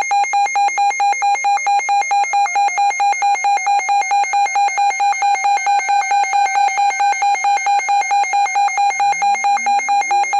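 Electronic alert tone beeping rapidly at one fixed pitch, several beeps a second, with faint rising wails underneath: an emergency alarm signal ahead of a new warning message.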